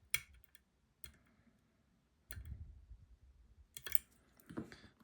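Lock picks working inside a Robur 2391 high-security lock: a few sharp, irregular metallic clicks as the pins are picked, with duller handling noise in between.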